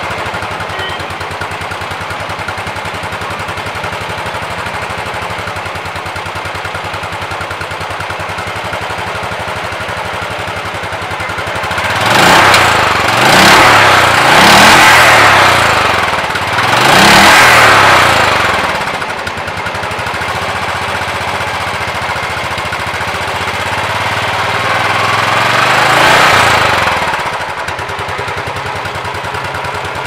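Royal Enfield Classic 350 BS6 fuel-injected single-cylinder engine idling through its stock chrome silencer. It is revved several times about halfway through and once more near the end, rising and falling each time.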